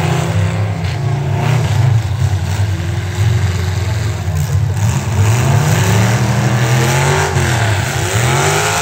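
Demolition derby cars' engines revving hard, several at once, their pitch rising and falling as they accelerate and back off.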